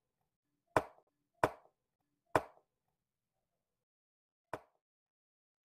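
Four sharp knocks of wooden chess pieces being set down on the board and the button of a digital chess clock being pressed. Three come in quick succession in the first two and a half seconds, and a fourth, quieter one comes about four and a half seconds in.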